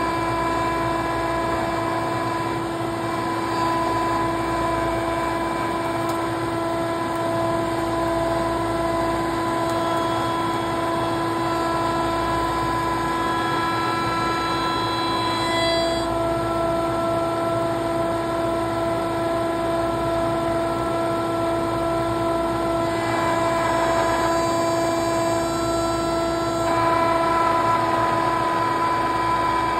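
Rockwell pin router running at speed with a steady high-pitched whine while its bit plows a groove in a wooden workpiece; the upper tones shift slightly about halfway through and again near the end as the cut goes on.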